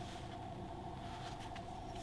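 Faint rustling of leather welding gloves handling a small welded steel test piece, over a steady background hum.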